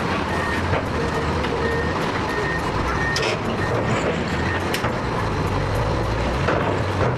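Heavy construction machine's engine running with a low rumble, its reversing alarm beeping in short regular pips for the first three seconds or so. A few sharp knocks are heard near the middle.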